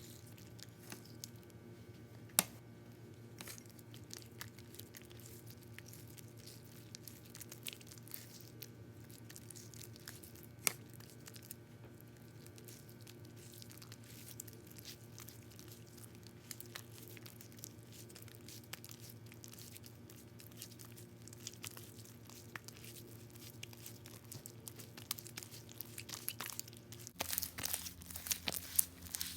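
Clear glue slime being mixed and kneaded: faint sticky crackling and small clicks over a steady low hum, with two sharper clicks and denser, louder crackling near the end.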